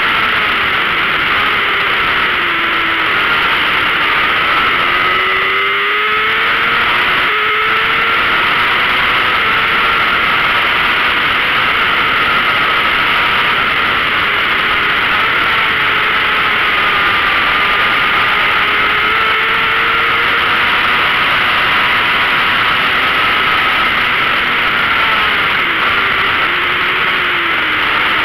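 Onboard sound of a 600cc racing motorcycle at speed: heavy, steady wind rush over the camera, with the engine running hard underneath, its pitch climbing and dropping as the rider accelerates, shifts and brakes.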